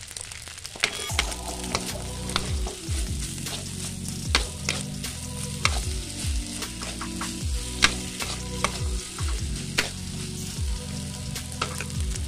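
Fried rice being stir-fried in a metal wok: the spatula scrapes and knocks against the pan in many sharp, irregular clicks over a steady sizzle of hot oil.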